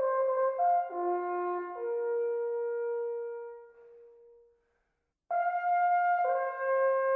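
Several Büchel, Swiss folded wooden natural horns, playing a tune together in harmony. A few quick chord changes lead into a long held chord that dies away about four seconds in. After a pause of under a second a new phrase comes in at full volume.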